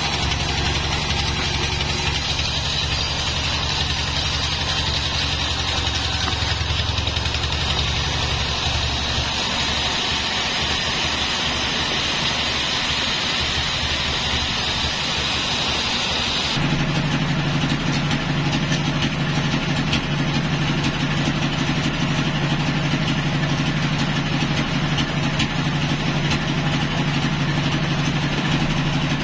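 Band sawmill running and sawing through a log, a steady machine noise with a high hiss. About halfway through the hiss stops abruptly and a steadier, lower engine hum carries on as the blade runs without cutting.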